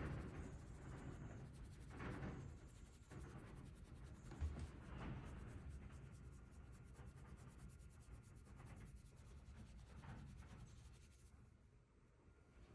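Faint rubbing sounds in soft, irregular swells every second or two, close to silence.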